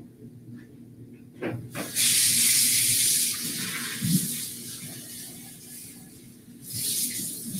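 Water running from a tap into a sink, turned on about two seconds in, easing off midway and running harder again near the end; a short knock comes just before it starts.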